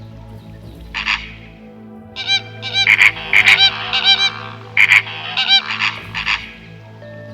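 Geese honking: a run of short, harsh calls, several in quick succession, over a steady low hum.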